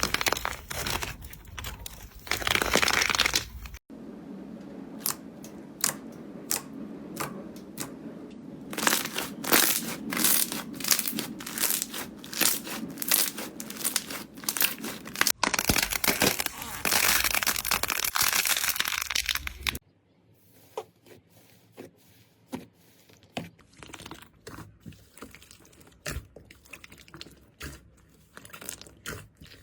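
Slime being squeezed, pressed and poked by hand: a dense run of crackly clicks and sticky popping. Abrupt changes at about 4, 15 and 20 seconds as one clip gives way to the next, the last part much quieter with scattered soft clicks.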